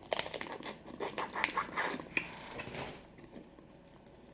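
Close-miked eating of boiled crawfish: a quick run of wet smacking and sucking clicks for about three seconds, then it falls quiet.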